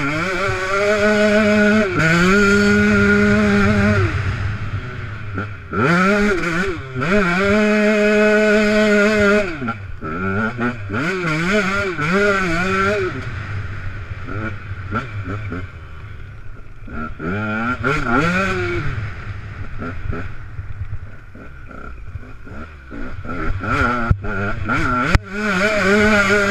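150 XC enduro motorbike engine revving hard under load on rough grass and mud. The pitch climbs and holds high, then drops and climbs again several times through gear changes and throttle. It eases off to lower revs through the middle and picks up hard again near the end, with a sharp knock shortly before the end. Wind and chassis rattle run underneath.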